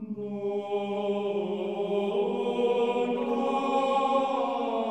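Slow chant sung by men's voices, laid in as background music. Long-held notes shift to a new pitch about two seconds in.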